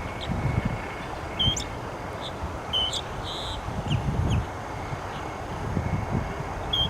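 Loggerhead shrike calling: short, high notes given a few times, a pair of them about three seconds in, over an irregular low rumble.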